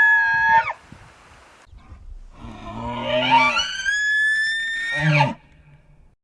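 Cartoon Parasaurolophus call sound effect: one trumpeting call ends with a drop in pitch in the first second, then a second call rises in pitch, holds, and falls away about a second before the end.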